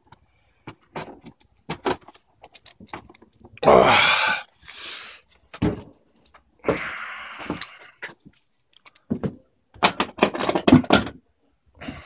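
Rummaging through bins and drawers of hardware: a string of clicks, knocks and metallic rattles, with a few longer scraping rattles about four, five and seven seconds in, and a quick run of clicks near the end.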